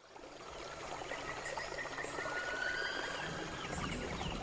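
Background nature ambience fading in from silence: a steady hiss with a few thin whistled calls, one rising and then held about halfway through.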